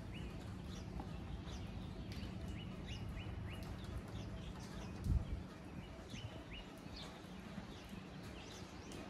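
Small birds chirping in quick repeated series over a low steady hum, with a brief low thump about five seconds in.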